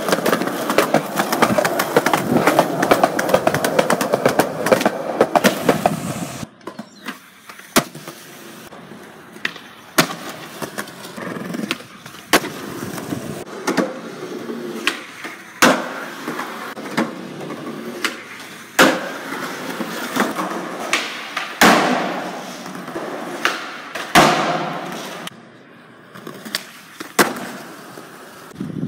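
Skateboard wheels rolling on concrete, broken by sharp clacks of the board popping and landing, about every two or three seconds after the first six seconds of steady rolling. The sound jumps abruptly from one take to the next.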